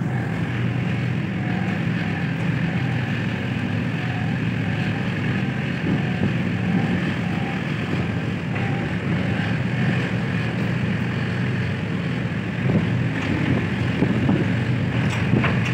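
Steady low machinery drone from the container crane and ship at the quayside, with some wind on the microphone and a few brief knocks near the end.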